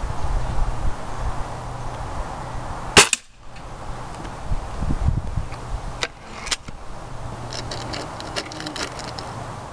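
A single shot from a .22 Beeman RS2 break-barrel spring-piston air rifle about three seconds in, followed by two smaller sharp clicks and then a run of faint light ticks.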